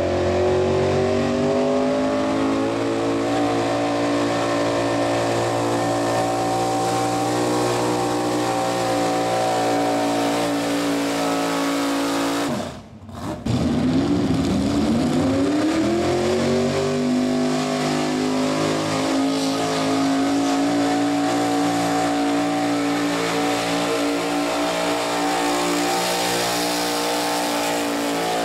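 Modified gas pulling truck's engine at full throttle dragging a weight-transfer sled, its pitch climbing at first and then holding high and steady. Near the middle the sound drops out briefly, and the engine comes back climbing from lower revs to a high, steady pitch again.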